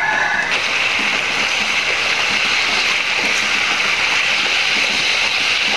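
Chicken pieces frying in spicy sauce in a wok, a steady loud sizzle.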